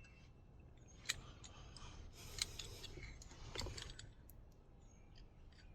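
Faint metal clicks and light scraping from a Weiser doorknob's lock cylinder being worked with its key turned to about three o'clock, as the cylinder's retaining spring is pushed back to release it. Three sharper clicks stand out, about a second apart.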